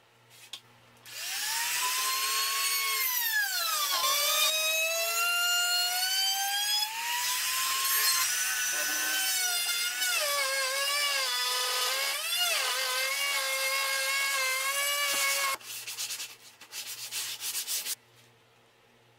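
Handheld trimmer router cutting a groove into a wooden panel along a clamped guide. Its high motor whine rises as it spins up about a second in, then dips and recovers in pitch as the bit bites into the wood. It shuts off about 15 seconds in, followed by a few short noises.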